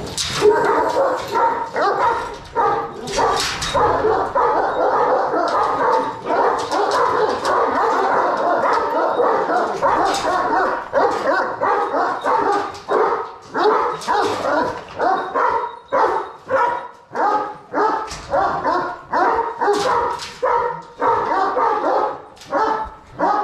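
Kangal dogs barking in a dense, unbroken run of calls; in the last several seconds the barks fall into a steady beat of about two a second.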